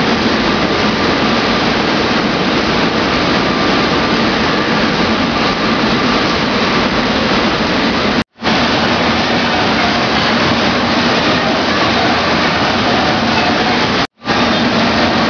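Glove-dipping production line machinery running, a steady, loud mechanical din with a faint high whine. It cuts out for an instant twice.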